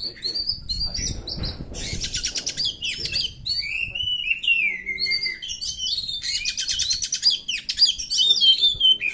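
Oriental magpie-robin singing a long, varied song. Clear whistles slide up and down, broken by two runs of very fast chattering notes.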